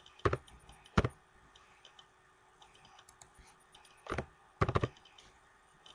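Typing on a computer keyboard: light key taps throughout, with four louder, sharper strikes, two near the start and two about four seconds in.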